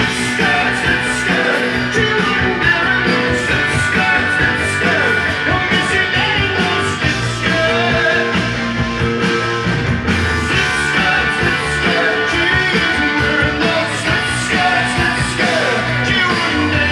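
Rock music with guitar and singing playing from a vinyl record on a Kenwood KD-4100 direct-drive turntable.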